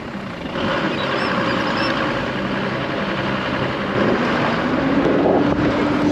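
A motor vehicle's engine running under steady noise, its pitch rising about four seconds in.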